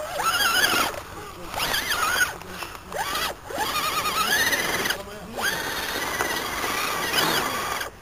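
A child's high-pitched wordless vocalising, wavering and gliding in pitch in several drawn-out stretches, the longest held near one pitch for about two seconds near the end.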